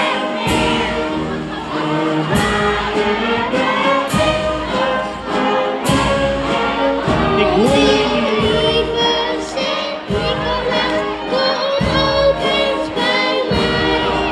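Fanfare band of brass and drums playing a tune, with sustained brass notes over regular drum strokes and voices singing along.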